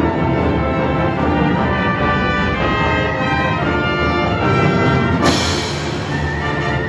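Youth symphony orchestra playing a loud, full passage of strings, winds and brass. About five seconds in, a cymbal crash rings out over it.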